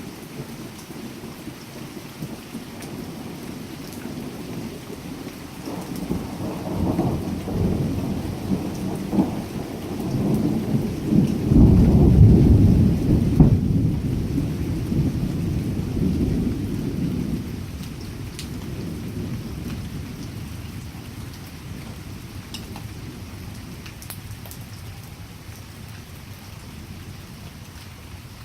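A long roll of thunder in a steady rain: the rumble builds about six seconds in, is loudest around twelve seconds, then dies away slowly over the next ten seconds or more, with the rain's hiss under it throughout.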